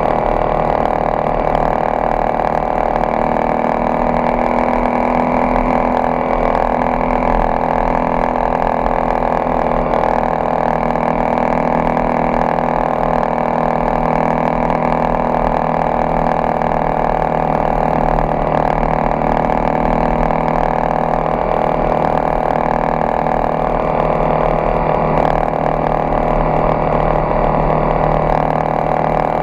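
Honda XRE 300's single-cylinder engine running at a steady speed, its pitch drifting only slightly.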